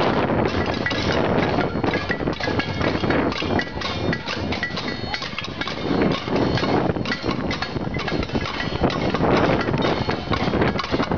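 A crowd banging pots and pans, a dense, unbroken metallic clatter of many strikes with short ringing tones. This is the noise of a casserole protest.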